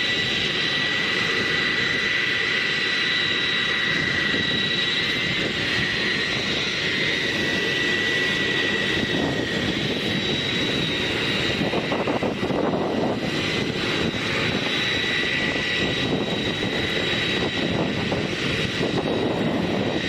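Jet aircraft engines running steadily: a continuous rush of engine noise with a high, steady whine on top.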